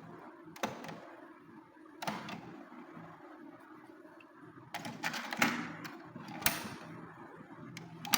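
A handful of sharp clicks and knocks of the hi-fi unit being handled, over a faint low hum.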